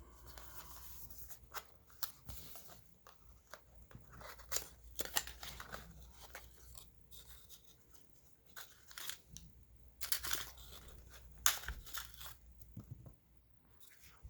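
Product packaging being handled and torn open: irregular rustling, tearing and sharp clicks, busiest about a third of the way in and again from about ten to twelve seconds in.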